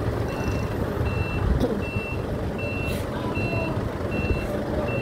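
A vehicle's reversing alarm beeping evenly, about once every three-quarters of a second, over the low rumble of a diesel engine.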